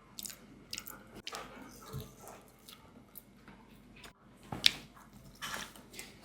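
Close mouth sounds of someone chewing soft, spongy bika ambon (Indonesian honeycomb cake): irregular wet smacks and clicks, with a sharper one about four and a half seconds in.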